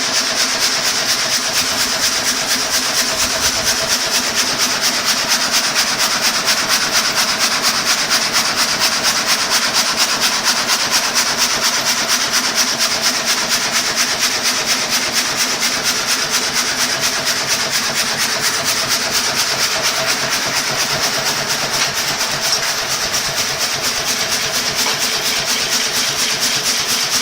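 Sawdust conveyor on a Remet CNC wood-processing machine running steadily, with a continuous scraping, rubbing rattle and a steady machine hum under it.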